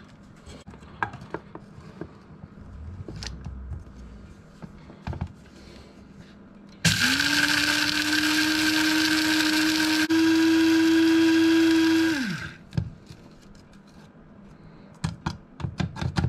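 Electric blade spice grinder grinding roasted whole spices (cumin, coriander, fennel and fenugreek seeds, cardamom pods, cinnamon, a dried red chili) to powder. It runs as one steady whine for about five seconds, starting about seven seconds in, steps up slightly in pitch partway through, then winds down. Light plastic clicks and taps of the grinder lid come before and after.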